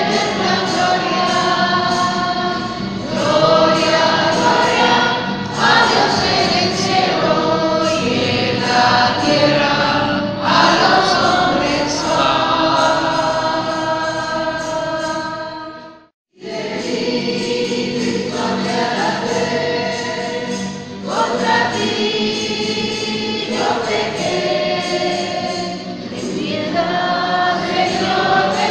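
Choir singing a slow religious hymn, with a brief sudden break to silence a little past halfway before the singing carries on.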